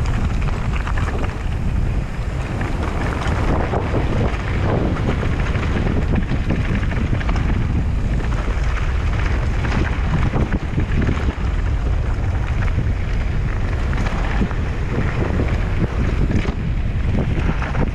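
Wind buffeting the microphone of a camera on a mountain bike at speed, over the steady crunch and rumble of tyres rolling on loose gravel.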